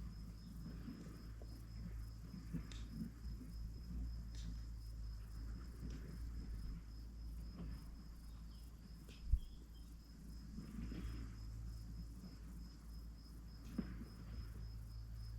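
An insect trilling in one steady high pitch, over a low rumble of wind on the microphone and soft rustling. A single thump about nine seconds in.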